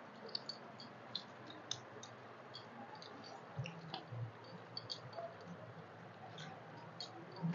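Faint eating sounds: fingers mixing rice on steel plates and mouths chewing, heard as scattered soft clicks and ticks, a few a second.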